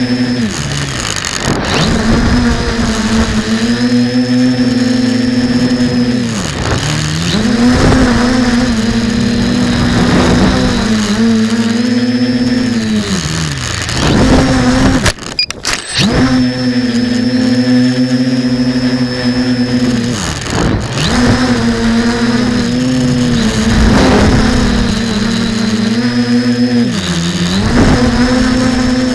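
Quadcopter motors and propellers running with a steady high whine, heard from the camera mounted on the craft. The pitch dips and swoops back up several times as the throttle is cut and punched again through flips and rolls, and the sound drops out briefly about halfway through.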